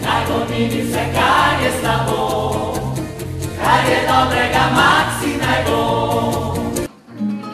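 Mixed choir singing in several voices, accompanied by strummed acoustic guitars; the song breaks off abruptly near the end.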